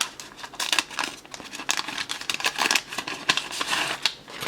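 Waxed-paper wrapper of a hockey card wax pack being torn open and crinkled: a run of irregular crackles and rustles.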